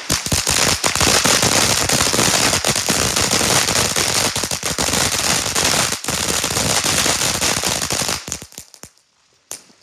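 Ground fountain firework spraying sparks with a steady hiss and rapid crackling. It dies down about eight seconds in, with one last pop near the end.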